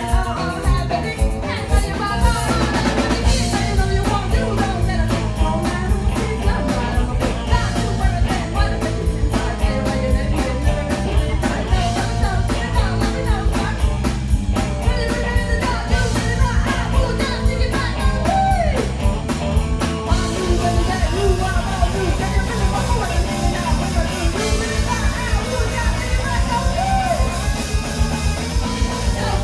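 Live rock band playing a song: drum kit keeping a steady beat under the band, with sung vocals. The fast, high cymbal pattern drops out about twenty seconds in.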